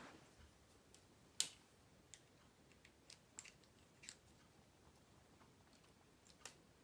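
Faint, scattered clicks and snaps of plastic K'nex pieces as seats are clipped onto a toy Ferris wheel, the sharpest about one and a half seconds in.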